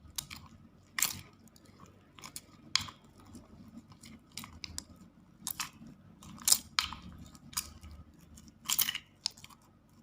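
A spoon stirring a sticky slime mixture of glue, talcum powder and body scrub in a container, giving irregular short scrapes and clicks against the container.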